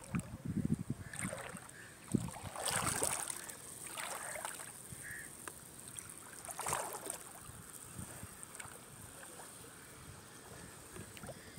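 Small waves lapping and splashing in clear shallows, coming in irregular splashes, with a faint steady high-pitched whine underneath.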